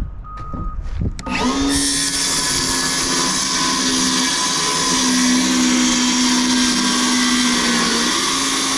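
Electric saw spinning up about a second in and cutting through a wooden form board, running loud and steady through the cut.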